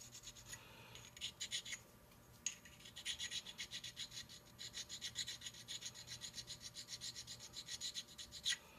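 Square carborundum stone rubbed back and forth along the edge of a lathe tool bit, honing it clean and sharp: faint rasping strokes, a few about a second in, then a quick, even run of about four or five strokes a second from about three seconds in, with one louder stroke near the end.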